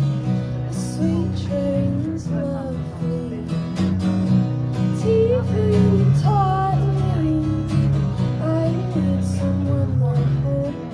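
A woman singing over strummed acoustic guitar, with an electric guitar playing alongside, performed live.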